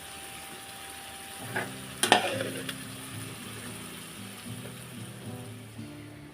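Vegetables sizzling in oil in a kadai while being stirred, a steady frying hiss. A sharp metal clank rings out about two seconds in, just after a lighter click, like a spatula striking the pan.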